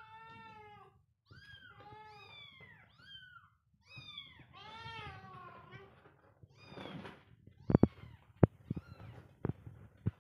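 Kittens mewing over and over in thin, high cries that rise and fall. About two-thirds of the way in they give way to a brief rough noise and several sharp knocks, which are the loudest sounds.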